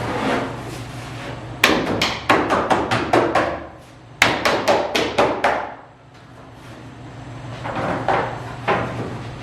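Two quick runs of sharp knocks, like hammering, each about a second and a half long at roughly five strikes a second. A steady low hum runs underneath.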